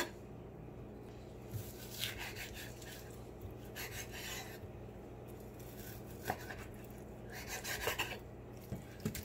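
Kitchen knife slicing raw boneless chicken thigh, the blade scraping across a wooden cutting board in about three faint rasping strokes, with a few light taps.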